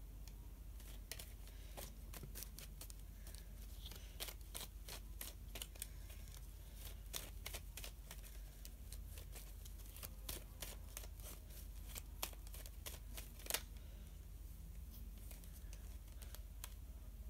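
Tarot cards being shuffled and handled off to the side: faint, irregular light clicks and snaps of cardstock, with one sharper snap late on, over a low steady hum.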